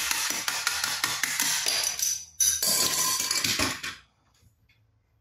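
Hard plastic toy fighter jet and its loose parts clattering and rubbing as gloved hands handle it, a dense run of clicks and scrapes. It pauses briefly just after two seconds and stops abruptly about four seconds in, as the jet is set down.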